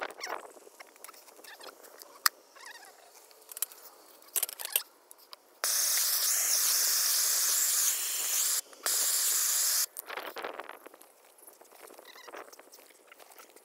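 Hand-held propane torch burning with a loud, steady hiss for about four seconds, with a short break just before it cuts off, as it heats the end of plastic water pipe to soften it for fitting. Before and after the torch, plastic pipe scrapes and knocks as it is worked by hand in a dirt hole.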